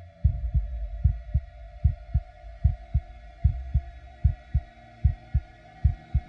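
Edited soundtrack of deep paired thumps in a heartbeat rhythm, about one pair every 0.8 s, over a steady humming drone.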